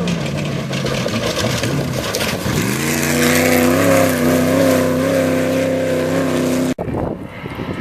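Off-road race vehicle's engine running hard under a loud rushing noise. About two and a half seconds in, the engine note rises and then holds high and steady, and the sound cuts off suddenly near the end.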